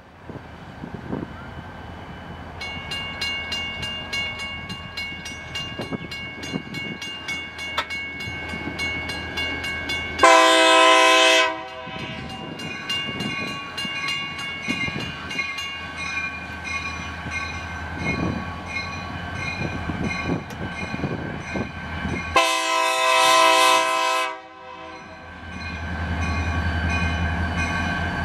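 Diesel locomotive approaching with its bell ringing steadily from about two seconds in, and two loud horn blasts, the first about ten seconds in and a longer one about twenty-two seconds in. Near the end the engine's low rumble grows louder as the locomotive draws close.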